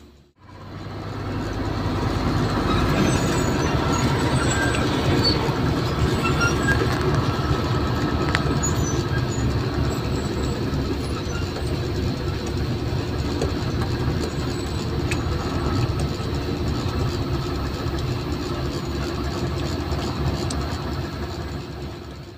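Heavy diesel machinery running: a loud, steady engine rumble that fades in just after the start and fades out near the end.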